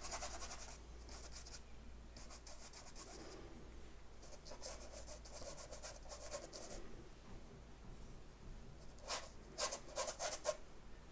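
Large bristle brush scrubbing thick red paint onto a primed canvas: a faint, dry rasping in several bursts of short strokes, the firmest strokes near the end.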